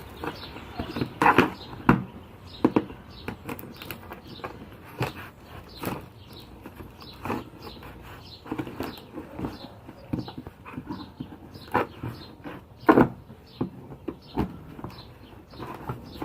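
Cardboard shipping boxes and packaging being handled and opened by hand: irregular crinkling, scraping and knocking. The loudest knocks come about a second in and again near the end.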